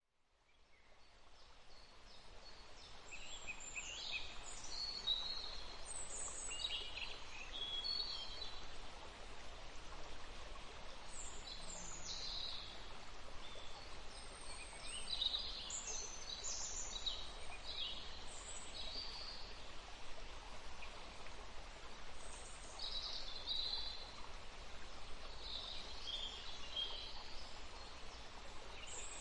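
Forest ambience: birds singing and chirping in short, high phrases over a steady rush of running water. It fades in over the first few seconds.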